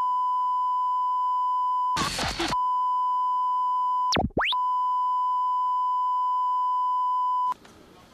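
Steady 1 kHz test tone of a TV colour-bar test card. About two seconds in, a half-second burst of noise breaks it. About four seconds in, the pitch dips sharply down and swoops back up. The tone cuts off abruptly near the end.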